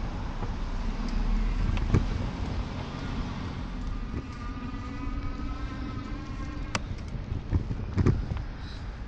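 Street traffic heard from a moving e-bike: a motor vehicle running close by over a steady low rumble, with a few sharp knocks.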